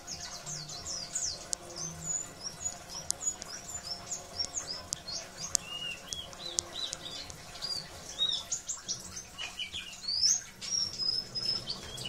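White-eye (pleci) singing a fast, twittering song of quick, high chirps and short warbled notes, run together with hardly a break.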